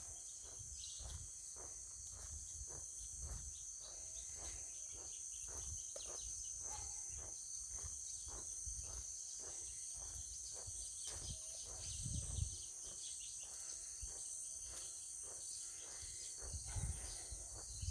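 A steady, high-pitched chorus of insects in swamp vegetation, with footsteps falling about twice a second.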